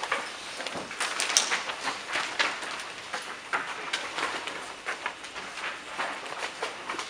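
Sheets of paper rustling as they are leafed through and shuffled: a run of irregular crackles, with one sharper tap about a second and a half in.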